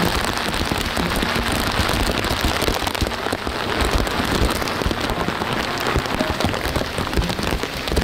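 Heavy rain pouring down: a steady, dense hiss of falling rain with countless small drop impacts.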